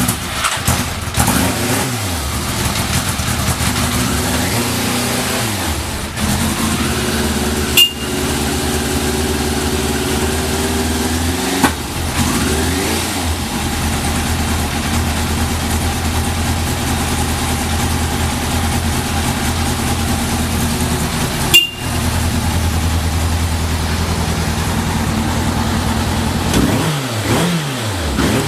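Yamaha GTS1000's inline-four engine idling just after an electric start, with the throttle blipped a few times so the revs rise and fall; the seller describes it as running without abnormal noises. Three sharp clicks cut in along the way.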